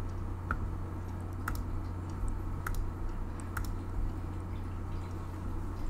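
A few sharp computer clicks, about four, roughly a second apart, over a steady low hum.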